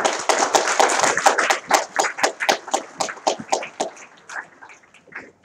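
Audience applauding, dense at first and thinning out to scattered claps over the last second or so.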